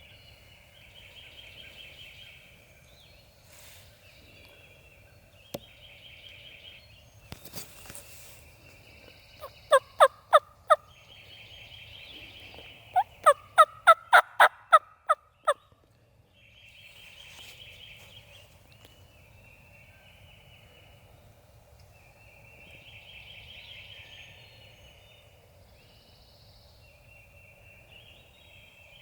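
Wild turkey gobbles repeating every few seconds at a distance. Near the middle come two loud, close runs of turkey yelps, first five notes and then eight, the second run rising in pitch.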